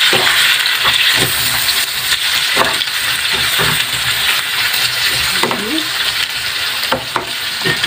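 Chopped tomatoes and onions sizzling steadily in a hot non-stick frying pan while a spatula stirs them, with scattered scrapes and knocks of the spatula against the pan.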